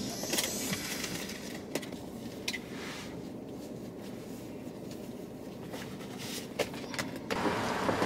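Soft clicks and knocks from someone moving about inside a car, over a steady low rumble. About seven seconds in, a louder, even hiss comes in.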